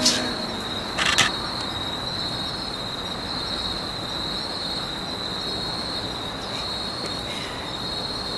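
A steady high-pitched tone over a low hiss, with two brief noisy bursts, one at the start and a louder one about a second in.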